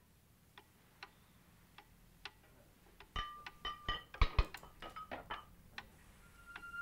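A few faint scattered ticks, then about three seconds in a quick run of louder clicks and short clinks, some ringing briefly. A steady held musical tone comes in near the end.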